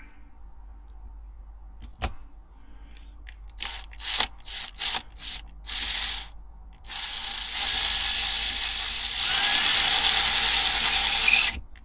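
Cordless drill drilling out the rivet that holds a die-cast toy car's base: a few short trigger bursts, then a steady run of about five seconds with a high motor whine, louder in its last couple of seconds, stopping suddenly near the end.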